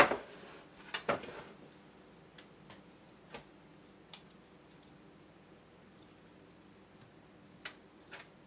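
Light clicks and taps of chicken wings and a serving utensil being set onto a serving tray. The sharpest click comes right at the start, two more follow about a second in, then fainter scattered ticks.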